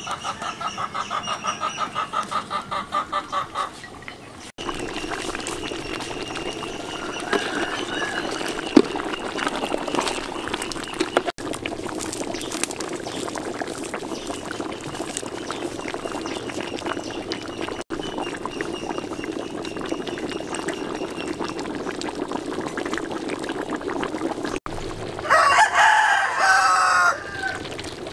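Chickens: a hen clucking rapidly in the first few seconds, and a rooster crowing loudly once for about two seconds near the end, over a steady low background noise.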